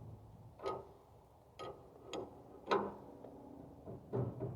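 Irregular metal clinks and clanks, about six, some with a short ring, from tools working on the sawmill's metal parts as the belt fittings are loosened.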